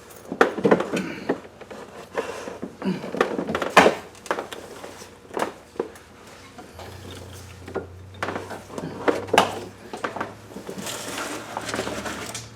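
Metal hand tools clinking and knocking on engine parts in irregular clicks and clanks.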